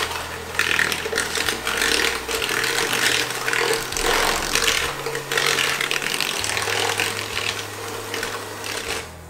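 Handheld electric mixer running, its twin beaters churning butter and sugar in a plastic bowl: a steady motor whine under a mixing noise that rises and falls. It cuts off near the end.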